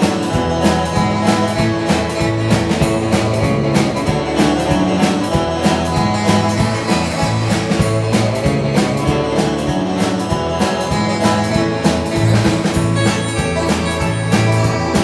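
Live band playing an instrumental: two electric guitars and an electric bass over a steady drum beat.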